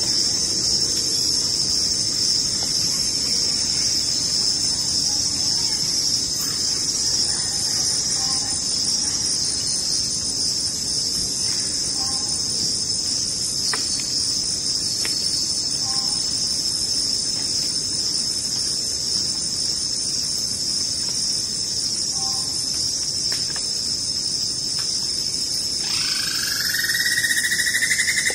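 A steady, high-pitched insect chorus, with faint two-note calls repeating every couple of seconds. About two seconds before the end, a louder call comes in, rising and then holding at a higher pitch.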